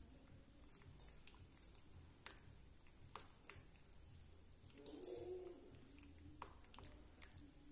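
Faint soft scrapes and light ticks of a silicone spatula stirring milk in a steel pan as custard paste is poured in, with one sharper tick about three and a half seconds in.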